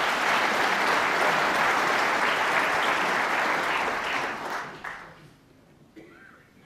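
Snooker audience applauding, loud at first and dying away about four to five seconds in.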